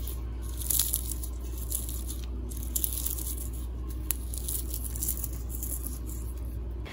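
Crispy deep-fried onion slices (birista) crackling and crunching as a hand squeezes and crumbles them over a bowl, in repeated bursts; the dry crunch shows the onions are fried fully crisp.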